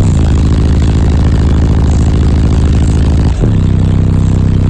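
Heavy bass music played very loud through a high-power car-audio subwoofer system, heard inside the truck cab: deep held bass notes that slide down at the start and jump to a new note about three and a half seconds in.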